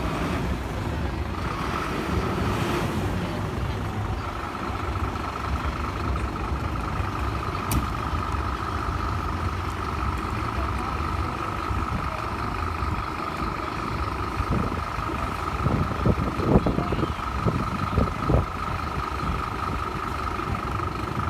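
Scania P270 fire engines' diesel engines idling with a steady low rumble. A steady high-pitched tone sounds over them from about a second in.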